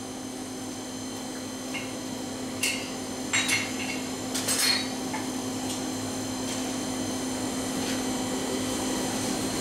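Hand hammer striking hot steel on a steel anvil: a few separate, light metallic blows between about two and five seconds in, over a steady hum.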